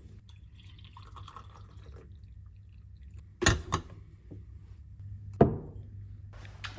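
Coffee poured from a glass carafe into a ceramic mug, a faint trickle over a low hum. Then two sharp knocks of hard objects being set down about halfway through, and another clunk near the end.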